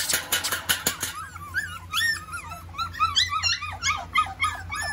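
A litter of five-week-old puppies whining and yipping in many short, overlapping high cries that rise and fall, starting about a second in. Before that comes a rapid rattling clatter of the wire pen panels as the puppies climb on them.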